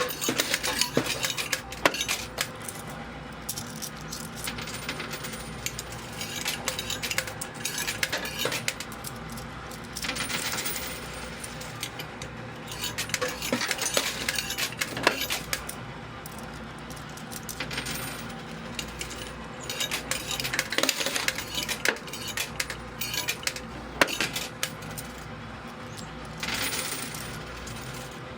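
Quarters clinking and clattering in a coin pusher machine as they are dropped in and land among the coins on the playfield, with several longer stretches of coins clattering together. A faint steady machine hum runs underneath.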